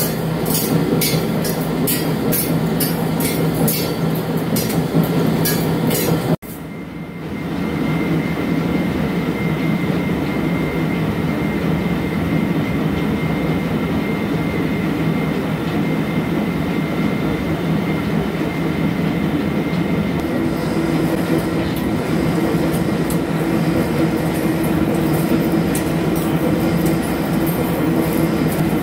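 CNC vertical lathe turning a steel ring: steady machine noise of the insert cutting, with a rapid clatter of steel chips. The sound drops out for a moment about six seconds in, and the clatter eases, leaving a thin steady whine, then picks up again in the last third.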